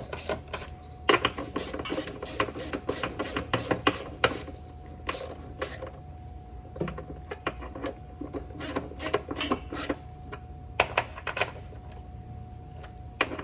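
Hand ratchet clicking in quick runs as bolts are snugged down through rubber isolators, with the runs growing shorter and more spaced out after about four seconds.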